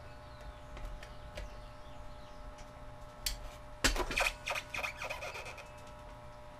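Light handling noises: small clicks, taps and rubbing as spark plug caps are fitted onto a 111 cc twin-cylinder engine in its styrofoam packing, with a cluster of louder clicks about four seconds in, then a large vernier caliper set against the engine.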